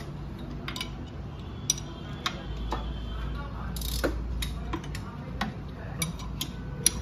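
Scattered metal clicks and taps, about ten spread irregularly, as hands handle engine parts and bolts in a car's engine bay. A low steady rumble comes in about two and a half seconds in.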